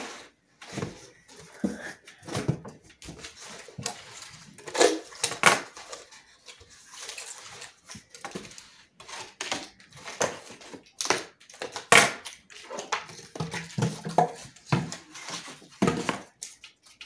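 A cardboard shipping box being pulled apart and its flaps and inserts torn away: irregular rustling, scraping and knocks, with ceramic baking dishes knocking and clinking inside as they are freed.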